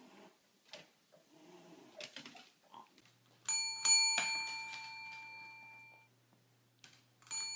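Desk bell struck by a dog's paw: three quick dings about three and a half seconds in, ringing on for about two seconds, then another ding near the end. Faint scattered indoor sounds come before the bell.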